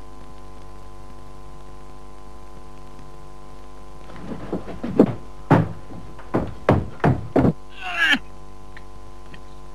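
A steady low drone, then from about four seconds in a run of heavy knocks: a few light ones, then eight or so louder ones about three a second. Near the end comes a brief, higher sound with a wavering pitch.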